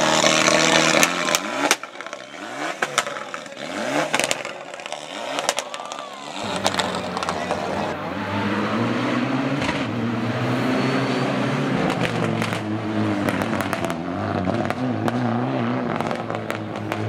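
Rally car engine revving up and down through gear changes as it drives a stage, with sharp pops and crackles. For the first second or two the engine is close by among a crowd; after that it is heard from a distance.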